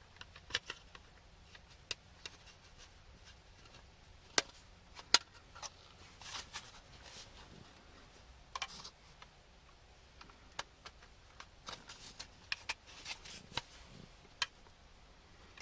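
Scattered small plastic clicks and brief scrapes as a flat-blade screwdriver pries back the retaining tabs of a car's power door lock switch to lift it out of the door trim, with two sharper clicks a few seconds in.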